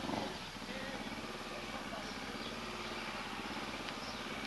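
Motorcycle engine running steadily with an even, fast pulse, no revving.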